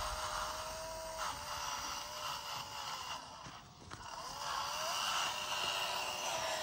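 Small motor and gears of a handmade mini MF 385 model tractor whining steadily as it drags a spring-tine cultivator through sandy soil, with the tines scraping. The whine dips about halfway through, then picks up again.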